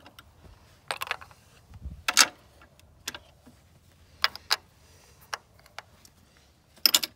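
Hand wrenches clinking and clicking as they are handled and fitted to the fuel pump fittings. There are a handful of separate sharp metal knocks spread out, with the loudest pair near the end.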